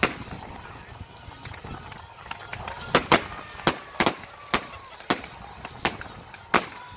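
Aerial fireworks going off in a volley of sharp bangs as the shells burst. After one bang at the start and a few softer pops, the bangs come fast and loud from about three seconds in, roughly two a second.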